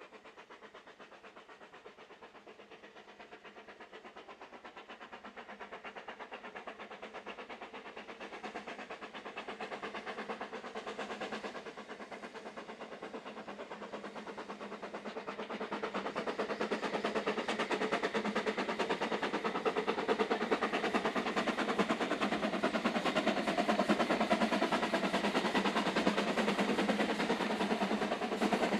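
Ffestiniog Railway narrow-gauge steam locomotive climbing with a train, its rapid exhaust beats growing steadily louder as it approaches and loudest in the second half.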